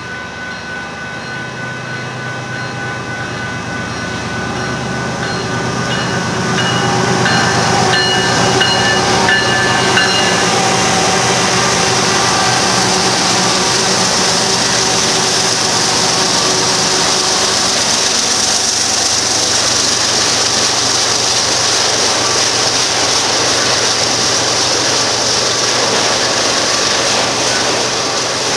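Union Pacific freight train approaching and rolling past, louder over the first few seconds, then a steady loud din of locomotives and cars running on the rails. Several steady tones ring over it for about the first ten seconds, then stop.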